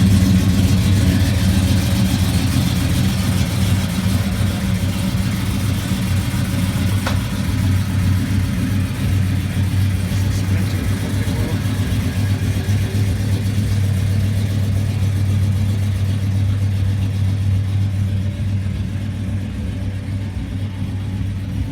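A hot-rod truck's engine idling steadily, with an even low hum that eases off slightly near the end.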